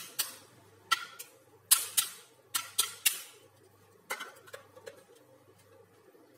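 Sharp knocks and clicks of a plastic blender jar full of dry-ground peanuts being lifted off its motor base and handled: about a dozen hard knocks in the first five seconds, the loudest around two seconds in, then only a few faint clicks.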